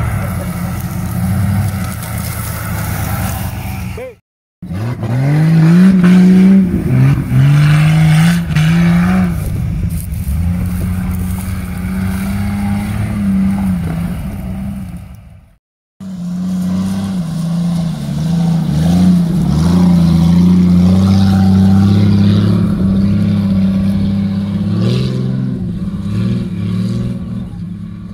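Off-road 4x4 engines revving hard, their pitch rising and falling again and again as the vehicles work through rough scrub. There are three takes, split by brief cuts to silence about four seconds in and again a little past halfway.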